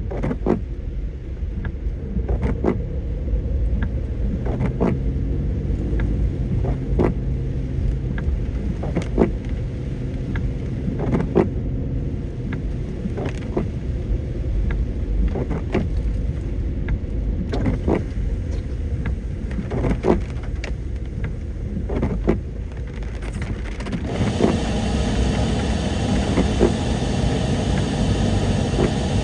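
Car driving on a rain-soaked road, heard from inside the cabin: a steady low rumble of engine and tyres, with a light click about every two seconds. About three quarters of the way through, a louder hiss of water comes in.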